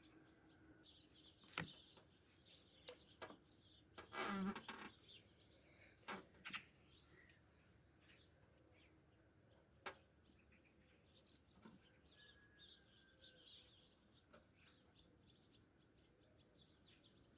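Faint birds chirping, scattered short calls over a quiet background, with a few sharp clicks and a brief louder rustle about four seconds in.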